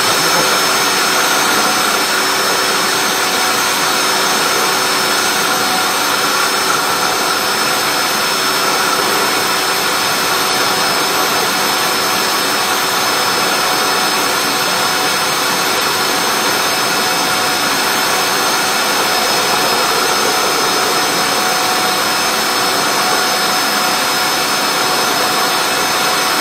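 Drain-cleaning machine running steadily, a loud even hiss with a thin high whine, working through a kitchen sink drain pipe clogged with grease.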